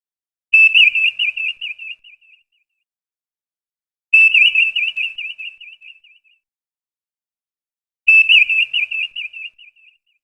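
Star Trek Enterprise viewscreen sound effect: a high electronic warbling chirp that starts sharply and trills away over about two seconds. It plays three times, about four seconds apart.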